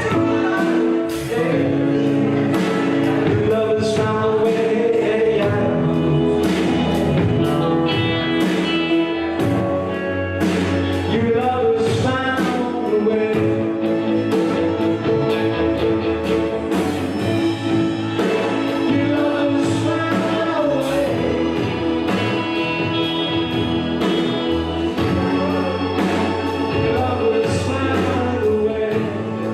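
Gospel music with singing, a choir and a steady beat.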